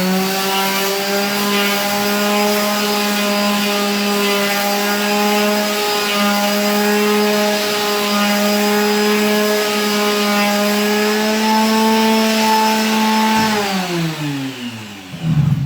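Electric sander running steadily as it sands primed canvas, loud, with a steady motor hum. Near the end it winds down, its pitch falling as it stops.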